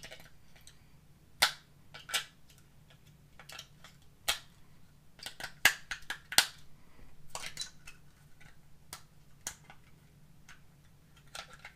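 AA batteries being pressed into a plastic four-cell battery holder and the holder fitted into its case: a string of sharp plastic clicks and clacks with handling rustle between them, the two loudest a little past halfway.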